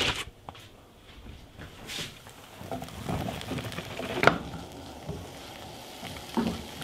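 Diced roasted bell pepper scraped off a plastic cutting board into a frying pan of onions, with a sharp clack about four seconds in as the board meets the pan. Then the pan sizzles steadily while silicone tongs stir the peppers and onions.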